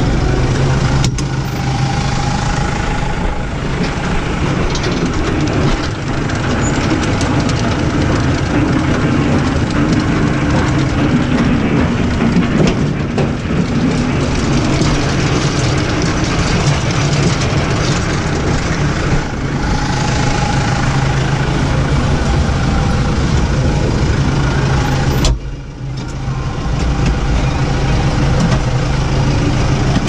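New Holland T4.75 tractor's diesel engine running steadily under load while pulling a loader wagon that picks up hay, with the clatter of the machinery mixed in. The sound changes abruptly a few times, with a brief dip about three quarters of the way through.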